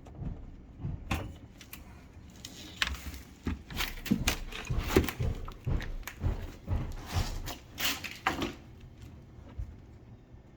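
Irregular knocks, clunks and scrapes of hands working at a dishwasher's drain hose fitting in a cabinet, tugging at a hose that seems stuck in its sleeve; the handling sounds die down near the end.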